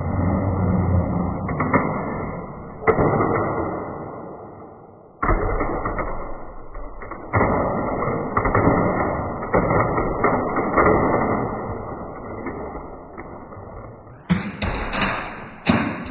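Die-cast toy monster truck running down a plastic track and smashing into a tower of magnetic building tiles: a continuous rattle broken by several sharp knocks, each fading off, with a brighter clatter of tiles near the end.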